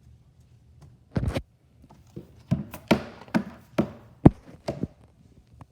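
Stomping footsteps on a floor: one longer, heavier thud about a second in, then a run of sharp thumps about two a second.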